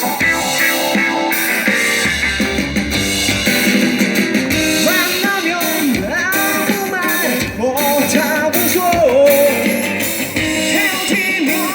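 A live band playing an instrumental break in a rock-and-roll song, with guitar and a lead melody that bends up and down in pitch through the middle of the break.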